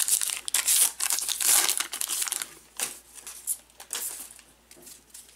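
Foil-lined trading card pack wrapper crinkling as it is torn open and handled, dense for about two and a half seconds, then a few lighter crackles as the cards come out.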